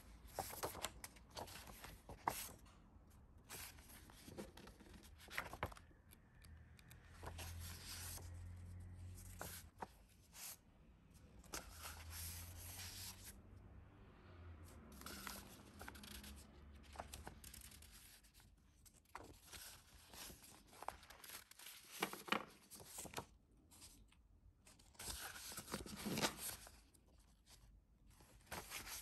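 Sheets of decorative craft paper and their packaging being handled: faint rustling and crinkling in irregular strokes, with tearing sounds.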